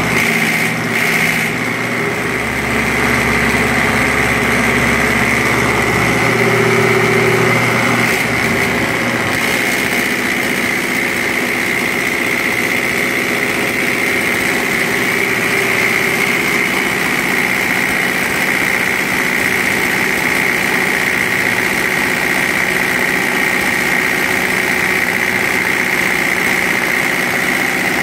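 Diesel injection-pump test bench running steadily, driving an Isuzu 4HG1 inline four-plunger injection pump with its lines feeding the bench's test injectors. The pump is being calibrated. It makes a constant machine drone with a steady high hiss, and the low hum changes about ten seconds in.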